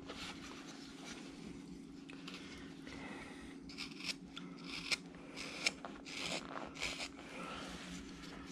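Carving knife slicing thin shavings off a wooden figure by hand: a string of short, irregular scraping cuts, a couple of sharper ones about five seconds in. A steady low hum runs underneath.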